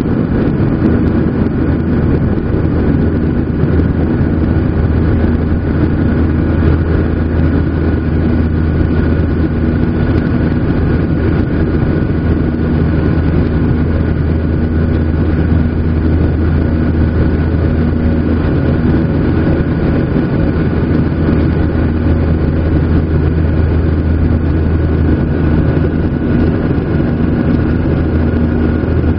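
Steady cabin noise of a Boeing 737-800 in flight: the deep rumble of its CFM56-7B turbofan engines and airflow, with a steady whine running through it, heard from inside the cabin.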